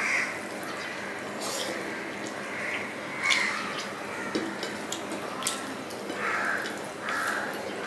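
Hand-eating sounds of rice and fish curry: wet finger-mixing with sharp mouth smacks and clicks from chewing. Crows caw a few times in the background, mostly near the end.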